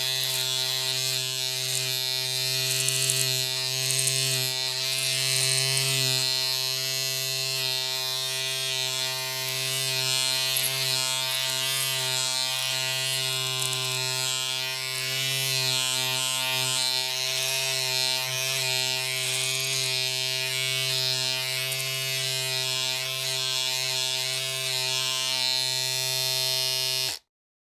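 Electric shaver running with a steady buzz and a hiss above it, then cutting off suddenly near the end.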